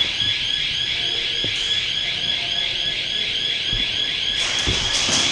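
An electronic alarm sounding continuously, a high tone warbling about four times a second. A couple of dull low thumps come near the end.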